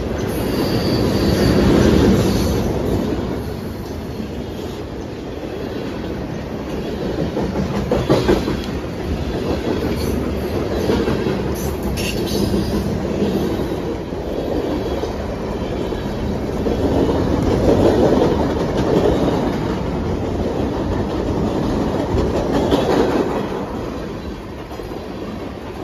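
Freight cars rolling past close by: a continuous heavy rumble of steel wheels on rail with clickety-clack over the rail joints, swelling and easing as the cars go by, with a few sharp clanks partway through.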